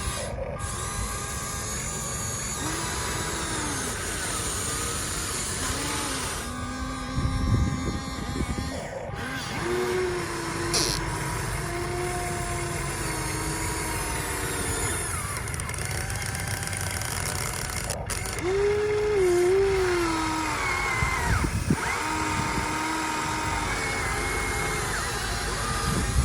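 Small electric motors and a hydraulic pump of a remote-controlled model excavator whining, their pitch rising and falling as the load changes. The sound breaks off abruptly several times.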